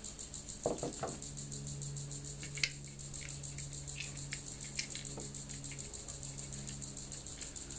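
Faint light clicks of small metal hardware being handled as a solder tag and nut are fitted onto a connector's mounting bolt. Under them runs a steady high-pitched, rapidly pulsing background sound, and a low steady hum sounds from about a second in until about six seconds in.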